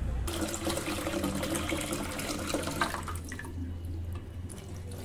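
Tap water running into a white bowl held under it at a washbasin, stopping about three seconds in.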